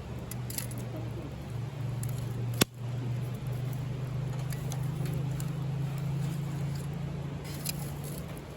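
Wood fire crackling with faint ticks and one sharp, loud pop about two and a half seconds in, over a steady low hum that eases off near the end.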